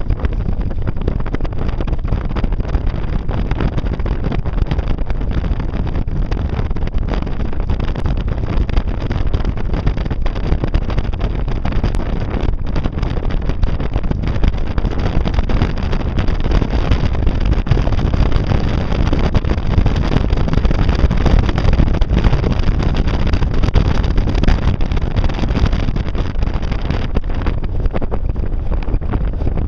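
Steady, loud rush of wind on the microphone of a camera riding in a moving car, with the car's running noise under it.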